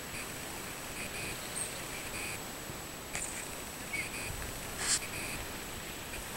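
Steady outdoor background hiss with a few short animal calls repeating at irregular intervals, and a brief sharp sound about five seconds in.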